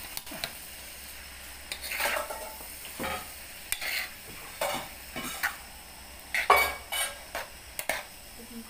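A metal spoon scrapes and stirs rice vermicelli and vegetables in a hot wok, with sizzling frying beneath it. The scrapes come at irregular intervals, and the loudest is about six and a half seconds in.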